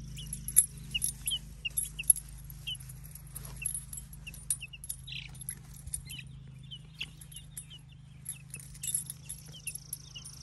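Week-old chicks peeping: a steady stream of short, high cheeps that slide downward, several a second, with a light metallic jingling alongside.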